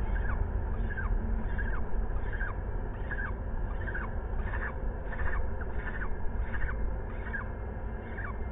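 Peregrine falcons calling in a steady series of short, downward-slurred calls, about one every 0.7 seconds, at the nest during a feeding. A steady low rumble runs underneath.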